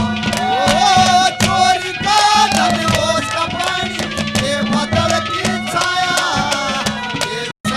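Haryanvi ragni folk music between sung lines: a hand drum beats a steady rhythm under a wavering melodic line. The sound cuts out completely for a moment near the end.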